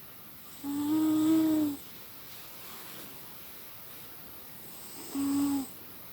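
A cat snoring with a whistling, pitched tone: one snore lasting about a second, then a shorter one near the end, over a faint steady hiss.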